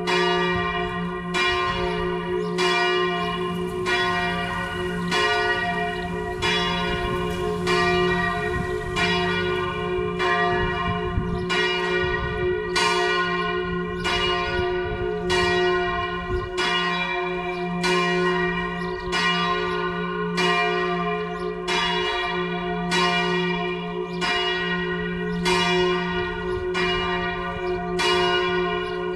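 Full peal of four swinging church bells, the largest tuned to G-flat, rung together in the Tyrolean way: a steady stream of overlapping strikes, each leaving a long hum under the next.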